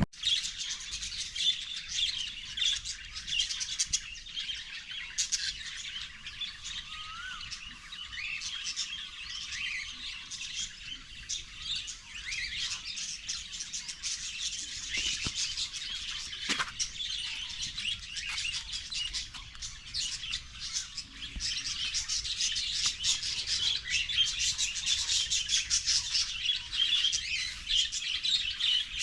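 A chorus of many birds chirping and calling over one another in forest, continuous and busy, growing denser in the second half.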